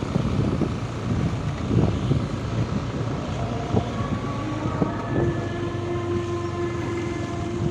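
A vehicle engine running steadily on the move under a low rumble of road and wind noise. Its pitch settles onto a new steady note about five seconds in.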